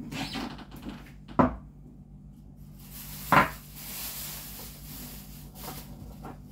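Two sharp knocks about two seconds apart as kitchen things are set down or shut during cleaning, with a soft hiss just after the second knock.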